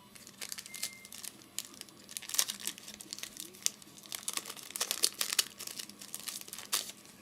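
Trading-card pack wrapper being torn open and crinkled, a run of irregular crackles and rustles.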